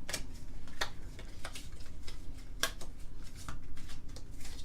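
Pokémon booster pack being opened and its cards handled: a string of short, irregular crinkles and clicks from the foil wrapper and cards.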